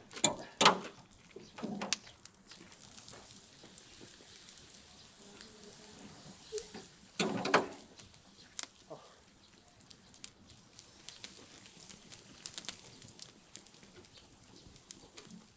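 Steel spit and wire rack holding a whole pig knocking and clanking as it is handled over a wood fire, loudest about half a second in and again around seven seconds in, with faint crackling in between.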